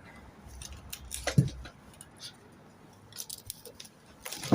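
Scattered knocks, scrapes and clatters of a person clambering in through an opening, with a heavier thump about a second and a half in and the loudest knock near the end.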